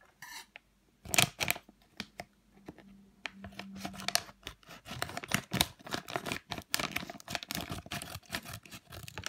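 Clear plastic packaging bag crinkling and crackling as a thumb presses a foam squishy toy through it: a string of short sharp crackles, one loud one about a second in, growing dense in the second half.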